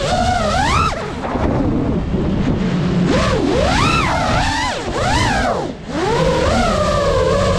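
FPV quadcopter's motors and propellers whining, the pitch swooping up and down quickly as the throttle changes, with a dense rumble of wind buffeting the onboard microphone. The whine drops away briefly about three-quarters of the way through.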